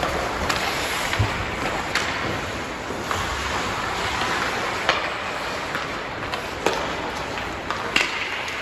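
Ice hockey play in an indoor rink: a steady wash of skates scraping the ice and arena noise, broken by about six sharp clacks of sticks and puck every second or two.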